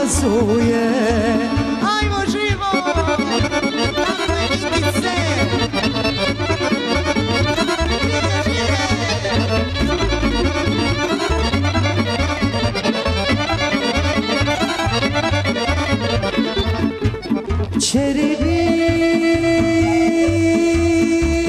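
Live Balkan folk band playing a sevdalinka, led by the accordion over violin, acoustic guitar and double bass. A long held note comes in near the end.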